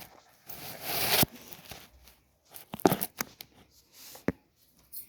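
Rustling and crackling: a swell of rough noise lasting under a second, then a cluster of sharp cracks and clicks and one more click near the end.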